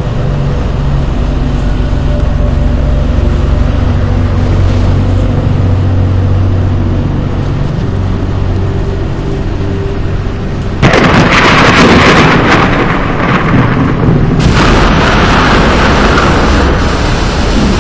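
A steady low vehicle rumble, then about eleven seconds in a sudden loud rush of storm noise, which dips briefly and carries on.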